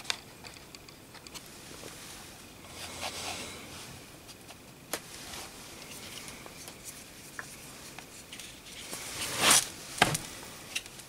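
Handling noises on a plywood work surface: scattered light taps and clicks, then a short, louder rustle about nine and a half seconds in and a sharp click just after, as solder wire and a soldering iron are brought to a copper strip.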